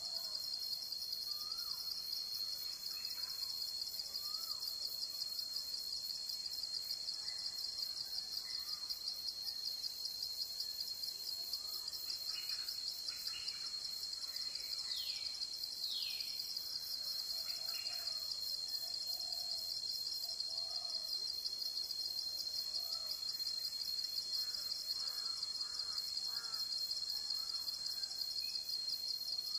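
Steady, rapidly pulsing insect chorus, high-pitched and continuous, with faint scattered bird calls beneath it, including two short falling whistles about halfway through.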